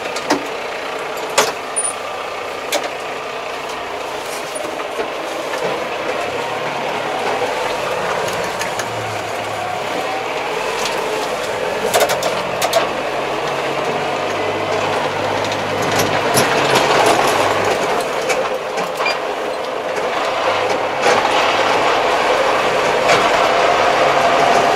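Kubota 75-horsepower tractor's diesel engine running under way, heard from inside the cab, with scattered clicks and rattles. It grows gradually louder toward the end.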